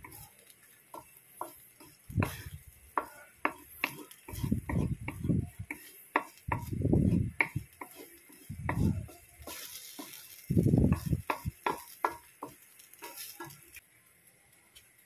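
Wooden spatula stirring and scraping sardines and egg around a metal wok over a gas flame: repeated scraping strokes and sharp clacks of wood on metal, with a light sizzle underneath. The stirring stops about a second before the end.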